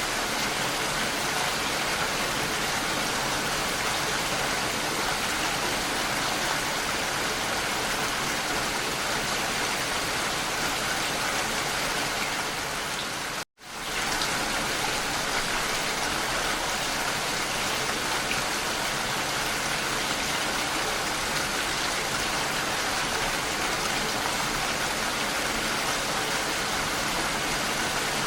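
Steady, dense rain pattering down. About halfway through it cuts out to silence for a moment, then fades straight back in.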